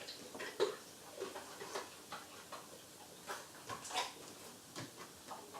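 Light, irregular clicks and knocks, about one or two a second, from a dog moving around a washing machine and shopping basket while retrieving laundry.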